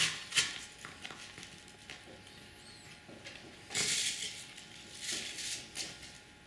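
Crepe-paper flowers on wire stems being handled and pushed into floral foam: light rustling and scraping with a few short clicks, the loudest rustle about four seconds in.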